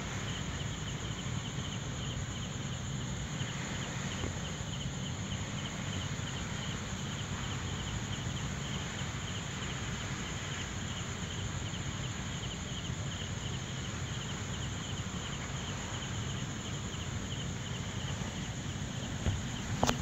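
Night insects chirping in a steady, rapidly pulsing high trill over a constant low rumble, with a couple of short knocks near the end.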